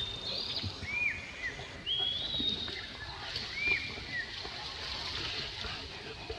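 Wild birdsong: a bird repeating short arched whistled notes with higher rising notes about once a second for the first few seconds, over a steady high hiss of forest insects.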